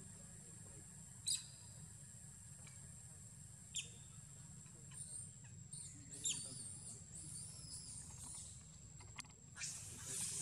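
Short, sharp high chirps about every two and a half seconds, and a warbling high-pitched call in the middle, over a steady low hum. A hissy rustle swells near the end.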